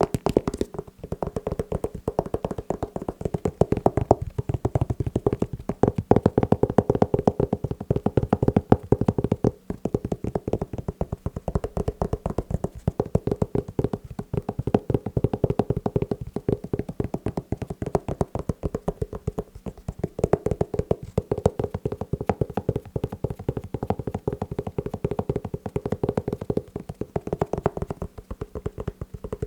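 Fast tapping on shoes, a rapid unbroken stream of many small taps a second.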